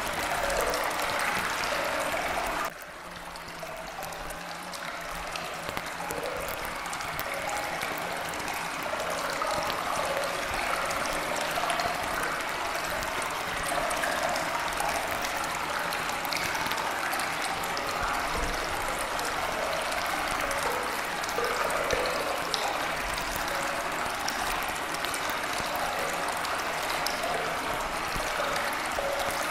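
Steady rushing, stream-like running-water noise. It drops suddenly about three seconds in, then builds back up over the next few seconds.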